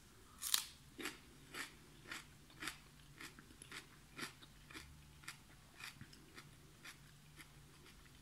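A mouthful of raw Richmond Green Apple cucumber being chewed: crisp, regular crunches about two a second, loudest at the first bite and growing fainter.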